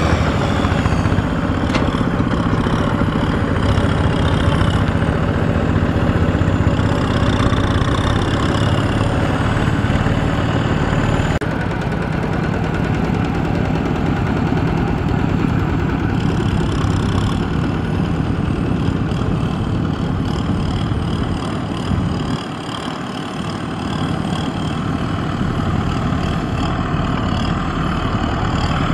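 Diesel farm tractor engine running steadily under load while the tractor drives through soft mud, easing off briefly about three-quarters of the way through.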